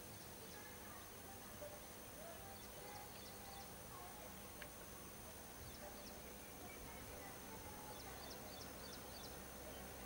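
Faint outdoor background noise with a few short, high bird chirps in two brief clusters, a few seconds in and again near the end.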